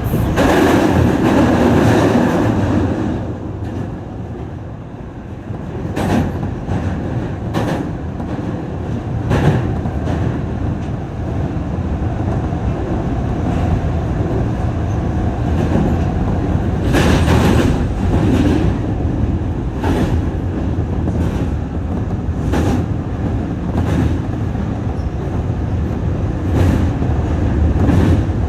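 Osaka Metro Midosuji Line train running at speed on elevated track, heard from the front cab: a steady rumble of wheels on rails with irregular clacks over the rail joints. The rumble is loudest for the first few seconds while the train crosses a steel truss river bridge.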